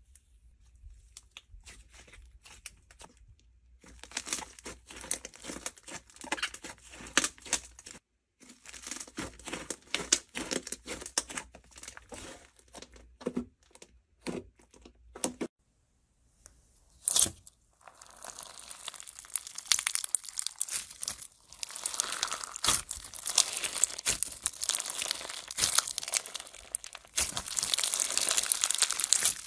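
Hands squishing and poking slime, making a run of sticky clicks and pops. After a brief pause and one loud pop, bead-filled crunchy slime is squeezed, giving a dense crackling that grows louder near the end.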